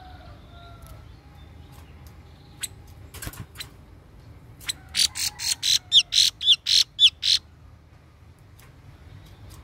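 Khướu bông cúc, a red-flanked babbler used as a decoy bird, calling in its cage: a few soft falling whistles, then about halfway in a fast run of about ten loud harsh notes, roughly four a second, lasting under three seconds.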